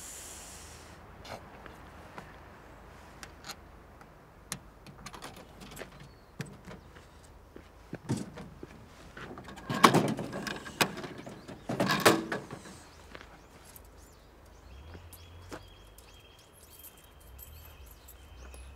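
Drink vending machine being worked by hand: scattered small clicks, then two heavier clattering clunks about two seconds apart near the middle. Near the end a faint steady whine with a low hum sets in.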